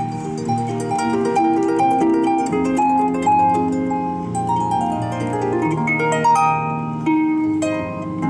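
Solo concert harp playing a light waltz: plucked, ringing notes over a bass line, with a quick descending run of notes about five seconds in.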